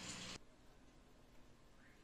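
Near silence: faint room tone, with a low hiss that cuts off suddenly about half a second in.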